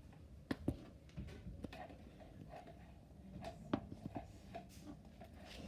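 A handful of small, scattered knocks and clicks from objects being handled, the sharpest about three quarters of the way through, over faint room noise.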